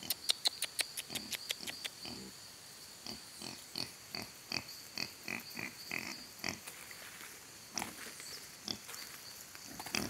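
Domestic pigs grunting in short, repeated grunts, about two or three a second, as they trot up. A quick run of sharp clicks comes in the first second or so.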